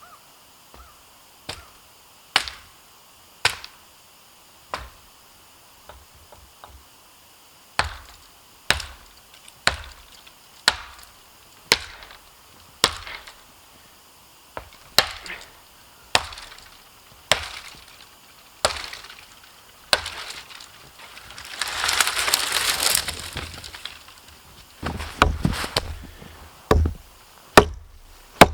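Chopping blows cutting a wooden pole, about one sharp whack a second, with a rush of noise lasting about two seconds two-thirds of the way through and a quicker run of blows near the end.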